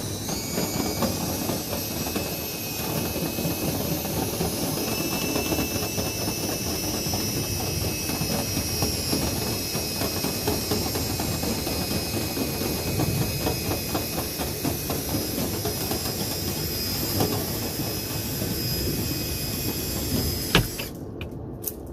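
Electric drill spinning a dryer vent cleaning brush on flexible rods inside the dryer duct: a steady high motor whine over the rattling and scraping of the rods and brush against the duct. The drill stops abruptly about 20 seconds in.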